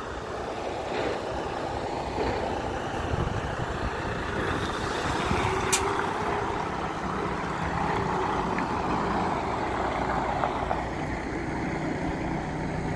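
Semi truck's diesel engine running at low speed as the tractor-trailer maneuvers, with a single brief sharp sound a little before the middle.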